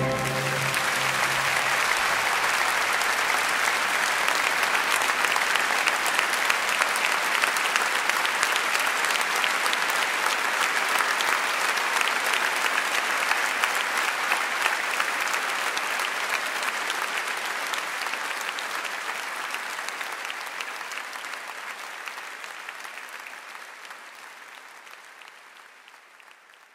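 Audience applauding after a song, a dense steady clapping that slowly fades out over the last ten seconds or so.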